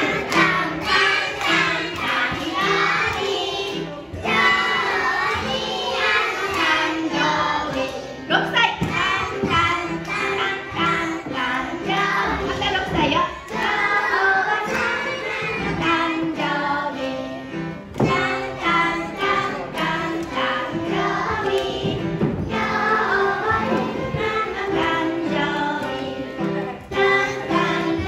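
A group of young children singing a song together to an instrumental accompaniment that plays steady low notes under the voices.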